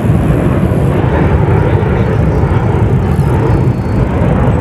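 Military jets flying past overhead in formation, their engines making a steady low rumble.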